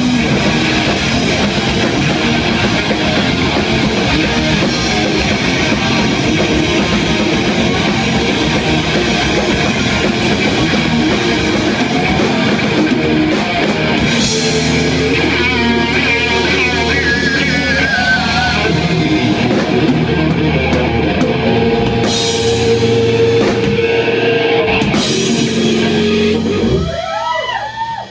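Live rock band playing loud: distorted electric guitars through Marshall amplifiers over a drum kit. A lead line with bent, wavering notes comes in partway through, with cymbal crashes, and the sound drops away right at the end.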